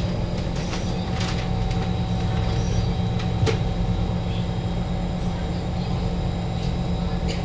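Kawasaki Heavy Industries C151 metro car standing at a platform with its doors open: a steady hum with a few constant high tones from the train's onboard equipment, and a few faint clicks, the sharpest about halfway through.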